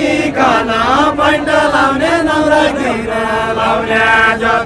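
Unaccompanied group singing of a Nepali deuda folk song: voices chanting a verse together, the tune gliding and then settling into long held notes.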